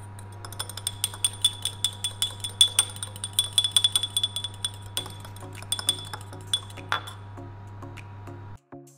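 Metal fork clinking quickly against the inside of a small porcelain cup while beating egg wash, each stroke a short, bright ring, over a steady low hum. The clinking stops about seven seconds in, and soft background music comes in near the end.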